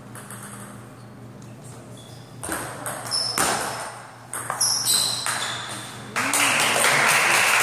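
A quick table tennis rally: the ball clicking back and forth off the paddles and the table, each hit with a short high ping. A couple of seconds after the last hit, spectators start applauding as the point ends.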